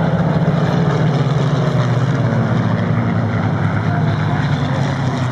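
Steady drone of a large formation of Supermarine Spitfires' piston engines as they circle low overhead.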